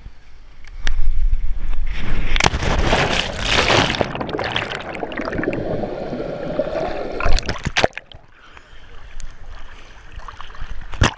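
A jumper falls from a bridge into a lake: a rush of air, then a loud splash about two and a half seconds in. It is followed by several seconds of muffled bubbling and churning heard underwater. This cuts off sharply about eight seconds in as the jumper surfaces, leaving lighter sloshing of lake water.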